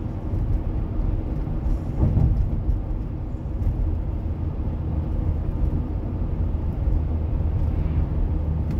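Steady low rumble of a car's tyres and engine heard from inside the cabin while driving, swelling briefly about two seconds in.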